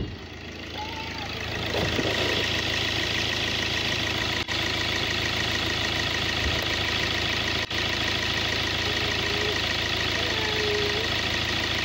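Common-rail diesel engine idling steadily, heard close up in the open engine bay, getting louder over the first two seconds as it is approached. It is running for an injector back-leak test, with the return lines feeding into collection bottles.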